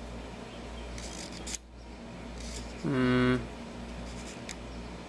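A man's short, held wordless hum at a steady pitch about three seconds in, over a steady low background hum.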